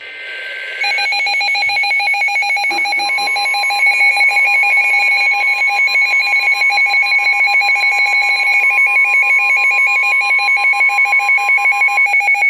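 A weather radio receiver's loud alert alarm beeping in rapid pulses, jumping to full loudness about a second in. Underneath it, the NOAA Weather Radio steady 1050 Hz warning alarm tone sounds from about three seconds in until shortly before the end, the signal that a warning broadcast is about to follow.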